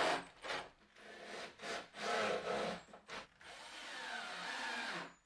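Cordless drill driving screws into plywood in several short bursts with brief pauses between them. In the first bursts the drill turns the screw through a right-angle adapter.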